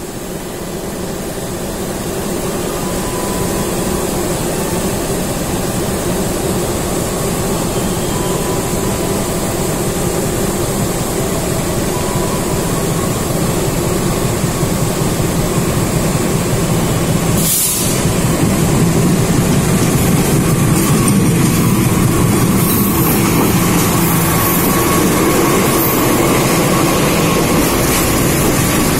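Container freight train hauled by a CC206 diesel-electric locomotive approaching and running past at close range. The locomotive's engine and the wagons rolling over the rails make a dense rumble that grows louder over the first several seconds, then holds.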